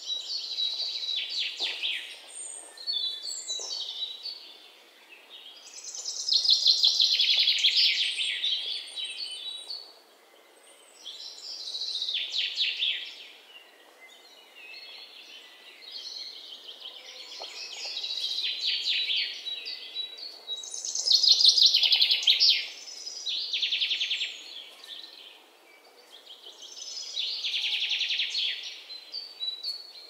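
Songbirds singing: loud phrases of rapid trilled notes, each lasting one to three seconds and coming every few seconds, over a faint outdoor hiss.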